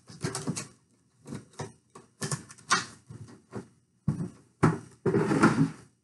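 Handling noise: a run of short knocks and rustles as objects are moved about and set down, ending in a longer rustle of about a second.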